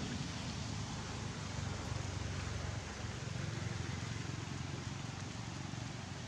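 Steady outdoor background noise: an even hiss with an unsteady low rumble underneath.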